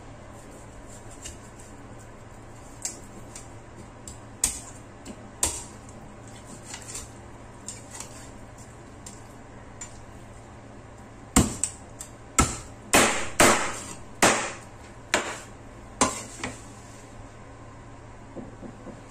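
Meat cleaver chopping a raw chicken into pieces on a cutting board: a few scattered knocks, then a run of about eight hard chops starting about eleven seconds in.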